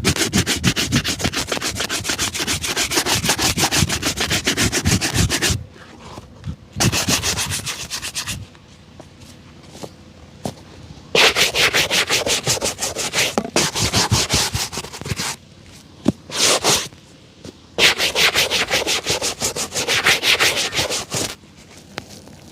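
Shoe being buffed with fast, even back-and-forth strokes in several bursts, with short pauses between them.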